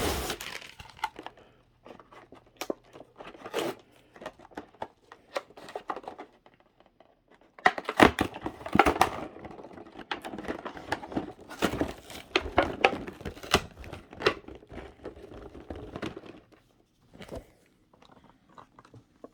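Toy packaging being torn and crinkled open by hand: irregular crackling, rustling and tearing with scattered clicks, busiest in the middle stretch and thinning out toward the end.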